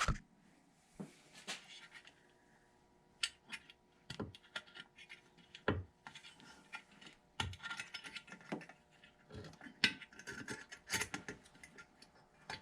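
Light clicks, scrapes and rattles of a wire retaining clip and a halogen bulb being worked out of a glass H4 headlight housing by hand.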